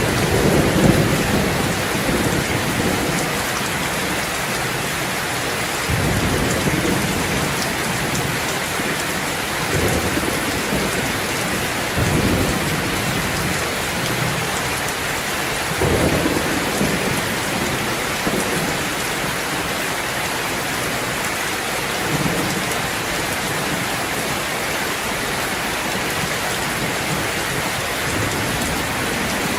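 Steady, even hiss of heavy rain falling on hard surfaces, with low rumbles rising and fading every few seconds.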